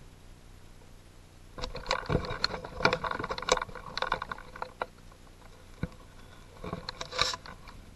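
Clicks and creaks close to the microphone. The first spell starts about a second and a half in and lasts about three seconds, and a shorter spell comes near the end.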